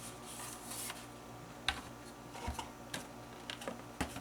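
Scattered light clicks and taps of hard plastic being handled, with a brief soft rustle in the first second.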